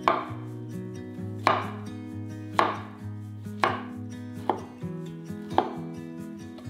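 Chef's knife slicing through a fresh young green pumpkin and striking a wooden cutting board: six sharp chops about a second apart.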